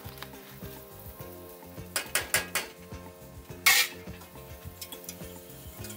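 Stainless saucepan and utensils being handled on an electric coil stove: a quick run of four metal clinks about two seconds in, then a brief, loud sizzling hiss a little after the middle. Background music plays throughout.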